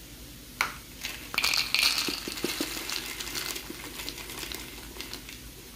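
Dry roasted peanuts poured from a jar into a small bowl, rattling and clattering for about four seconds as they tumble in, after a single click about half a second in.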